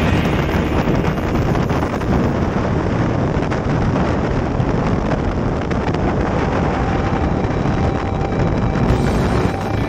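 Wind buffeting the microphone of a sport motorcycle riding at road speed, a steady dense rush with the bike's running noise mixed underneath.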